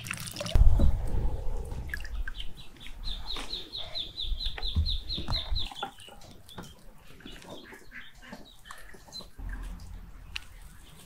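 Birds calling in a yard, with a fast run of short, high chirps starting about three seconds in and lasting some two and a half seconds. A loud thump of handling comes just after the start.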